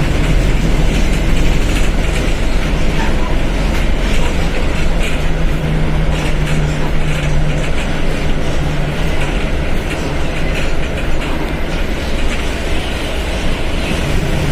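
Diesel engine of a Mercedes-Benz OF1721 BlueTec 5 bus running steadily, with a low drone, dense mechanical noise and a constant light clatter.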